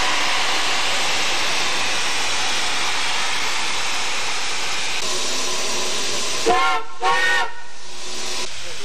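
Baldwin-built steam cog locomotive No. 4 of the Manitou and Pikes Peak Railway venting steam with a loud, steady hiss, then giving two short toots of its steam whistle about six and a half seconds in, each bending up and then down in pitch.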